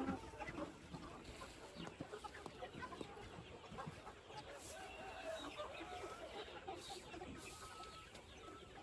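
Free-range chickens clucking, many short calls scattered throughout.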